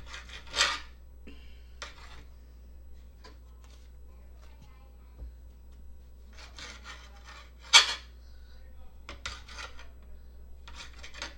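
Kitchen utensils scraping and clinking against pots and pans during cooking, in several short bursts of scraping with a few sharp clinks, the loudest about eight seconds in.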